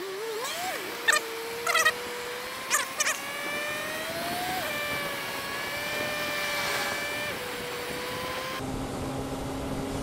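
Suzuki Bandit motorcycle engine running at road speed, its steady note rising a little and settling again, with a few sharp clicks in the first three seconds.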